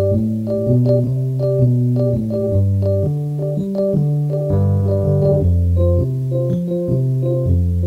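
Synthesizer music: a bass line of held low notes that changes about once a second, under a higher line of shorter notes, with a denser run of notes about halfway through.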